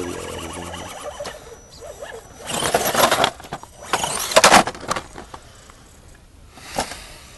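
An Axial SCX10 RC rock crawler's electric motor and gears whine as it climbs over rock. Two louder bursts of scraping come about two and a half and four seconds in.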